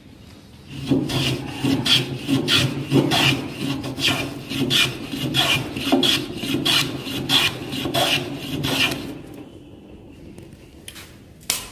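Repeated strokes of a hand tool across a wooden block as its surface is trued, about two a second, stopping about nine seconds in.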